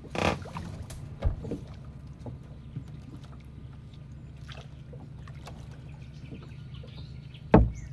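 Handling knocks on a small plastic boat as a pole hooks and hauls up a net fish trap: a brief noisy scrape at the start, a knock about a second in, and a sharp thump near the end, the loudest sound, over a steady low rumble.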